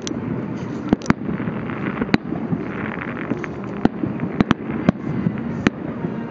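Aerial fireworks going off in a public display: a string of sharp bangs spread irregularly over a continuous rumble of distant explosions.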